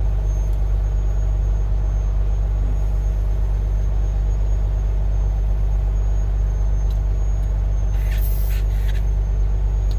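Steady low rumble of an idling engine, with a short rustling burst about eight seconds in.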